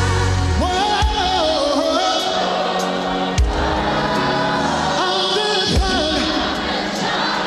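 Live gospel song: a sung lead melody with choir backing over a band with bass and drums.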